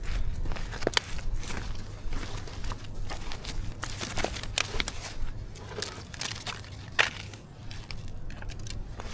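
Irregular crackles and crunches, several of them sharp, over a steady low rumble.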